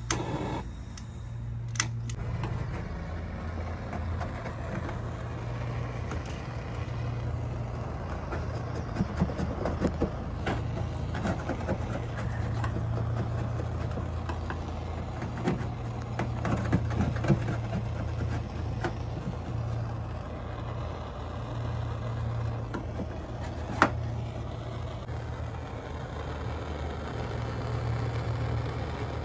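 Handheld BernzOmatic propane torch lit with a click about two seconds in, then a steady hissing flame as it heats DOT reflective tape on the bus's steel side panel to soften it for scraping, with scattered scraper taps and scrapes on the metal.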